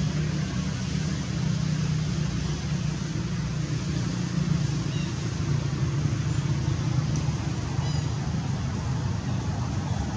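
Steady low rumble, engine-like, with a few faint short high notes.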